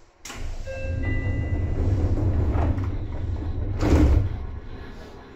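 Seibu 2000-series commuter train heard from inside the car: a sudden loud clunk, then a heavy low rumble with a few brief high tones near the start, a second sharp burst about four seconds in, and the rumble fading away near the end.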